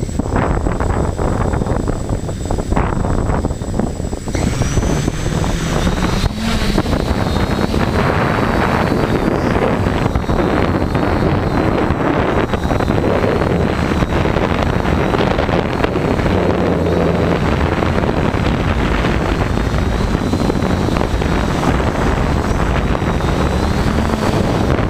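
Tarot 680 hexacopter's brushless motors and propellers whining under heavy wind noise on the microphone. The motor pitch wavers up and down, clearest from about four seconds in.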